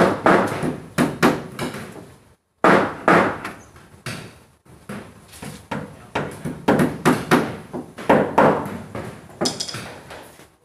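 Hammer blows on wood in quick runs of several strikes, with short pauses between the runs.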